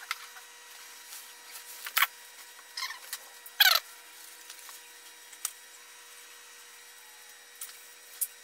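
Handling noise at a workbench during repair of an EPP foam model plane: a few short squeaky rubs about two, three and three and a half seconds in, then a couple of faint clicks, over a faint steady hum.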